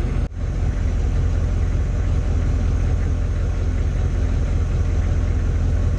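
Steady low drone of an AM General M998 Humvee's V8 diesel engine, heard inside the cabin, with a brief dropout about a third of a second in.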